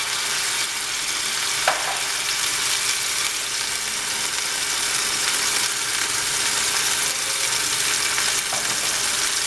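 Marinated chicken strips sizzling steadily in a few tablespoons of hot oil in a frying pan, stirred with a spatula. There is a single light knock a little under two seconds in.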